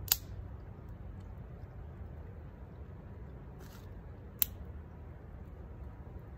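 Small wood fire being tended and fed twigs: two sharp cracks about four seconds apart over a steady low rumble.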